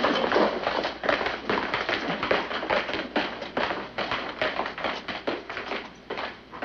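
Rapid, irregular clacking of a typewriter being typed on, several keystrokes a second, growing fainter toward the end.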